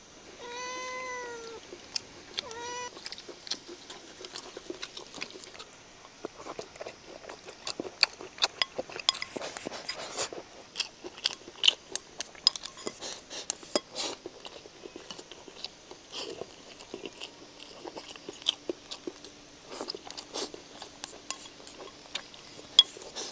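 A cat meows twice in the first few seconds, one longer call and a short one. Then chopsticks click and scrape against a rice bowl in quick, uneven taps, with chewing.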